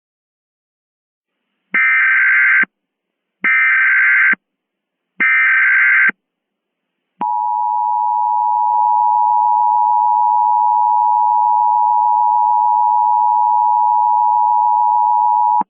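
Emergency Alert System tones. Three short bursts of SAME header data, each just under a second, are followed about seven seconds in by the steady two-tone EAS attention signal, which holds for over eight seconds.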